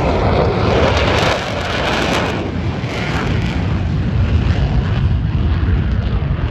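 Jet aircraft passing overhead: a loud rush of engine noise that is strongest in the first couple of seconds, then fades to a lower rumble.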